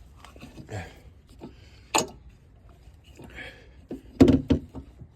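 Scattered knocks and clunks of hand tools and the spare wheel as it is fitted to the car, with a sharp click about two seconds in and the loudest clunks about four seconds in.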